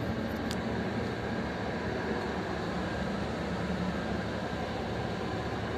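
Steady hum and rush of air inside an ultra-high-decker coach's cabin, with its air conditioning running.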